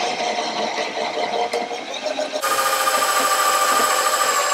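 Cordless drill with a 3 mm bit running as it bores a pilot hole for a rivet through the pop-top roof edge. The motor's steady whine steps up in pitch and gets louder about two and a half seconds in.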